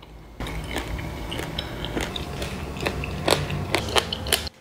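Close-up crunching and chewing of a crisp hackberry cookie made from whole ground hackberries, seed shell pieces and all. It is a run of irregular sharp crackles that starts about half a second in and cuts off suddenly near the end.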